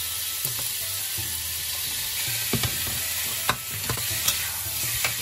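Diced chicken thigh and sliced carrots sizzling steadily in hot oil in a steel induction wok. A metal wok turner stirs them, scraping and clinking against the wok now and then.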